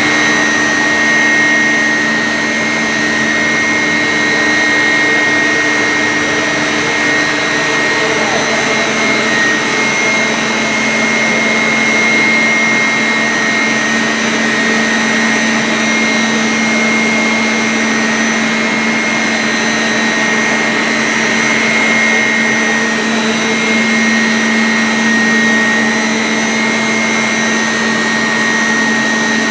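Electric motors of Xylem centrifugal pump sets running steadily: a continuous machine hum with a steady low tone and a high whine. A second low tone drops out about eight seconds in.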